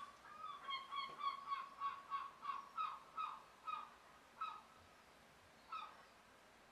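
A pen squeaking against paper taped to a wall, one short pitched squeak with each stroke, about three a second, thinning out to a few single squeaks in the second half.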